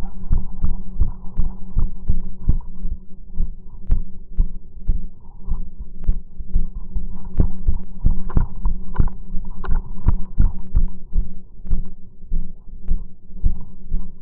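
Rhythmic low thuds, about two to three a second, over a steady low hum: walking footsteps picked up on the recording.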